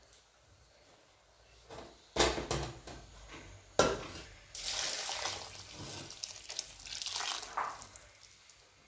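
Two sharp knocks, then hot water poured from a pot into a large aluminium pot of rice and vegetables, splashing steadily for a few seconds from about halfway through.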